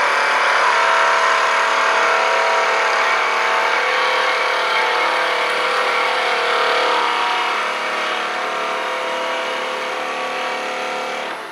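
Wood lathe spinning a small wooden spindle at about 2000 RPM while a hand-held turning tool cuts it, a steady motor hum under a continuous shaving noise. The cut is truing a blank that is still out of round with a flat spot.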